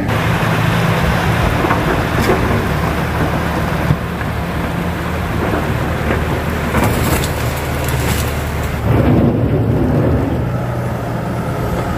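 Heavy rain falling on a KATO excavator, a steady hiss across the whole sound, with the machine's diesel engine running underneath as a constant low hum.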